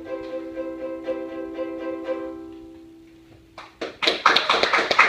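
Ukulele strumming one chord a few times a second, then the chord ringing out and fading as the song ends. About four seconds in, audience applause breaks out and is the loudest sound.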